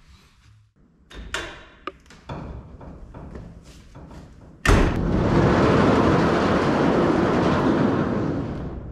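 Large corrugated-metal sliding shed door being pushed open, rumbling along its track for about four seconds after a sudden bang about halfway through. A few light knocks come before it.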